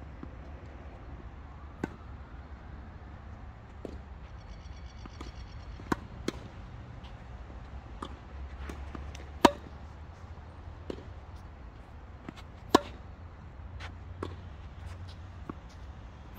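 Tennis balls struck by racket strings during singles play: sharp pops at irregular intervals, the two loudest about nine and a half and nearly thirteen seconds in, with fainter knocks between them over a steady low rumble.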